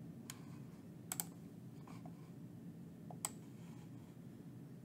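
A few faint computer clicks as the snipping tool is opened and used: one near the start, a quick pair about a second in and one more about three seconds in. Under them is a low, steady hum.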